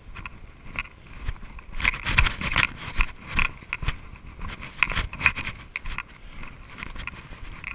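Footsteps crunching and scraping over a dirt trail strewn with dry leaves and patches of snow. The steps come irregularly and are thickest and loudest in the middle.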